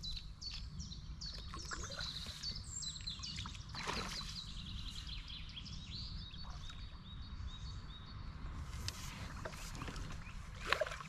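Small birds chirping and trilling over a low steady rumble, with a soft thump about four seconds in and another near the end.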